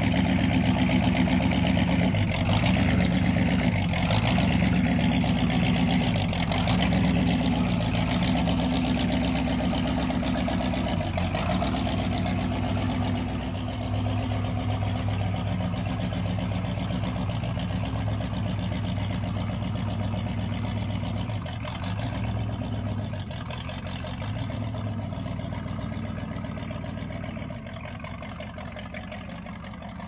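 Classic Riva wooden runabout's inboard engine running at low revs, a steady low-pitched note, fading gradually as the boat pulls away.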